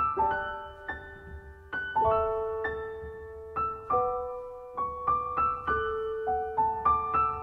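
Background piano music: a gentle, slow melody of single struck notes, each left to ring out.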